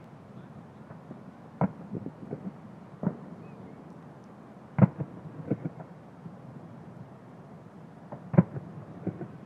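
Aerial fireworks shells bursting: four sharp booms, the loudest about five and eight seconds in, each followed by a few smaller pops, over a steady low background noise.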